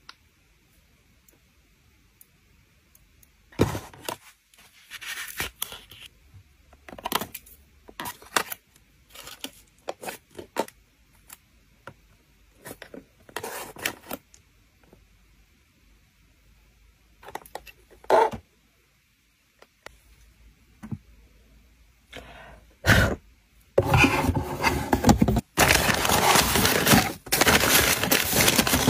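Scattered light taps and scrapes of small items handled on a tabletop. About two-thirds of the way through, a continuous loud crinkling starts as newspaper-print wrapping paper is pressed into a cardboard shipping box.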